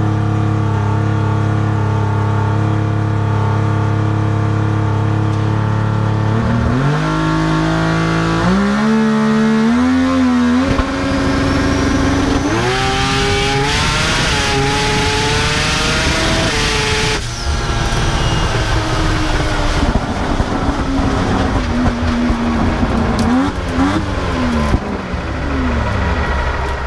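Mazda 20B three-rotor rotary engine of a drag car holding a steady note, then accelerating hard, its pitch climbing and dropping back at each gear change. After about seventeen seconds the pitch falls away slowly as it comes off the power.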